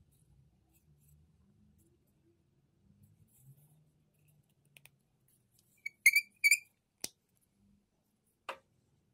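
Cork cap of a Nasomatto Baraonda perfume bottle being pulled off the sprayer neck, giving two short squeaks about six seconds in, followed by two sharp clicks as the cap and bottle are handled.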